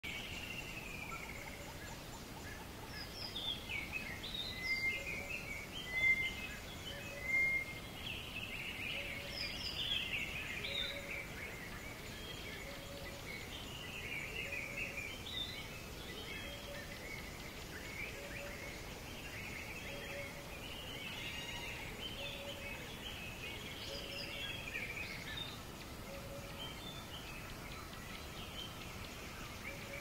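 Several birds chirping and whistling over a steady background hiss, busiest and loudest a few seconds in. Under them a short low note repeats evenly, about once every second and a quarter.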